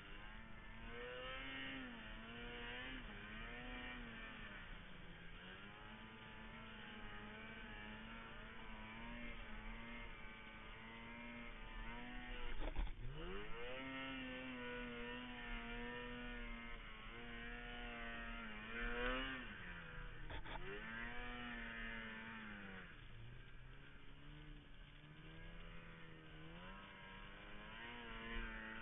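Ski-Doo snowmobile engine running under way, its revs rising and falling with the throttle; about thirteen seconds in the revs drop sharply and climb straight back, with further dips near twenty and twenty-three seconds.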